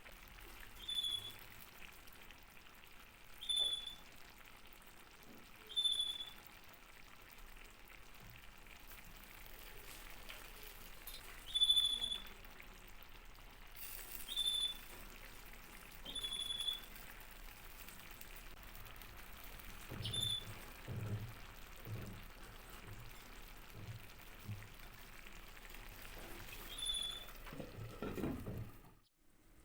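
Mussel tajine sizzling and bubbling softly as it cooks. Short high chirps recur every two to three seconds, and a few low knocks come near the end.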